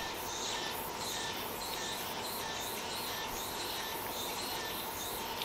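Insects chirring steadily in the background, a continuous high-pitched drone.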